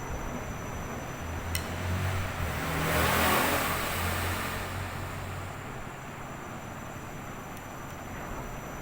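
Washing machine running. A low motor hum starts about a second in and stops about five seconds later, with a rising and falling rush of noise at its loudest about three seconds in, over a steady hiss.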